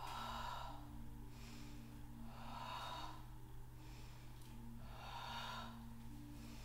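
A woman breathing audibly in a slow, even Pilates rhythm: three breaths about two and a half seconds apart.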